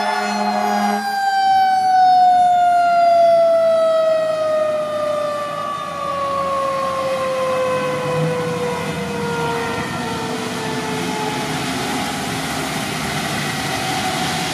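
Fire engine's air horn sounding, stopping about a second in, then its Federal Q mechanical siren winding down in one long, slowly falling wail as the truck pulls away.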